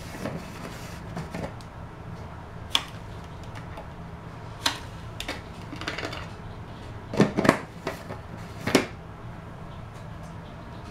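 Light clicks and knocks of measuring spoons and containers being handled on a kitchen counter while a teaspoon of sugar is measured out. There are a few scattered sharp taps, then a louder cluster of knocks about seven to nine seconds in, over a low steady hum.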